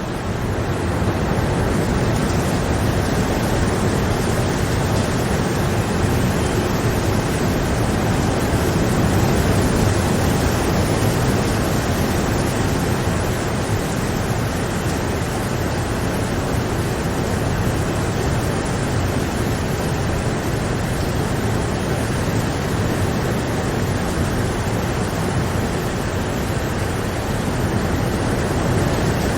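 Steady rain falling, an even wash of noise with no single drops or thunder standing out.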